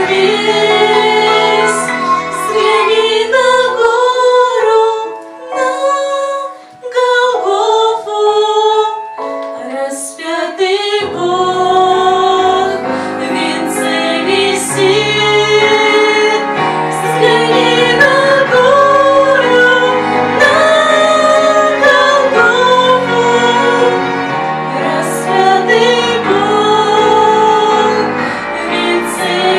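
Girls' voices singing a Christian song with instrumental accompaniment. The music thins briefly about six seconds in, then fills out again with a bass line.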